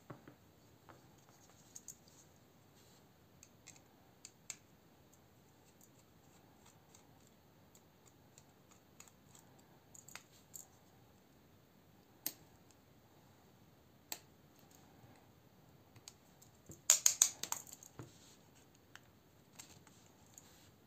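Small scattered clicks and taps of an Eafengrow EF966 folding knife and a Torx screwdriver being handled during disassembly, with a quick flurry of louder clicks about three-quarters of the way through.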